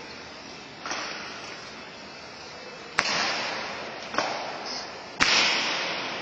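Honor guard soldier's boots stamping on a stone floor in a slow ceremonial march: four sharp, widely spaced clacks, each ringing on in the echo of the large hall, the last the loudest.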